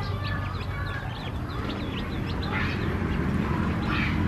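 Newly hatched ducklings and chicks peeping together: many short, high, falling cheeps overlapping one another, over a steady low rumble.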